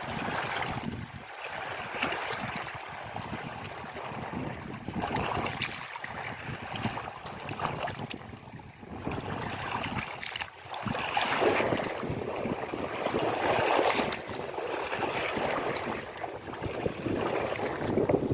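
River water flowing and splashing, a continuous rush that swells and ebbs in loudness, loudest about two-thirds of the way through.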